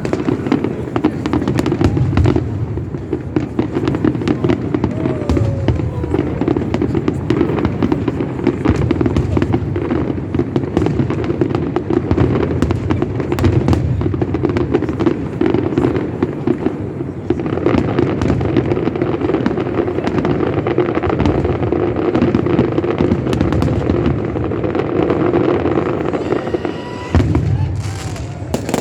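Fireworks and firecrackers going off densely and without pause: rapid, overlapping bangs and crackles, with now and then the whistle of a rocket.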